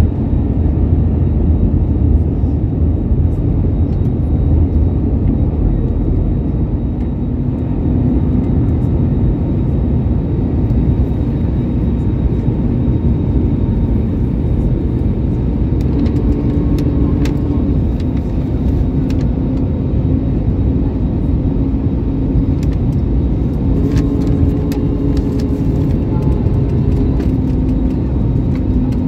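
Steady low rumble of jet engines and rushing air inside an airliner cabin during the descent to land, with a faint hum that steps up and down in pitch in the second half.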